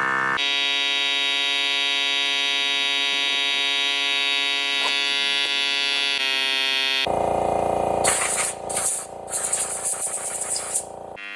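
Background electronic music of held, buzzy synthesizer tones whose chord changes abruptly about half a second in and again about seven seconds in. In the last few seconds a hissy, choppy noise joins it.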